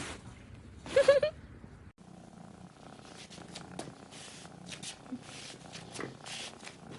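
Domestic cat purring. About a second in, a brief loud wavering high call comes in three quick pulses.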